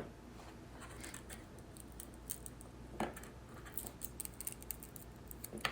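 Small tools and parts clicking and scratching against an opened iPod as its battery is worked loose: a few sharp taps, with light ticks and scrapes in between.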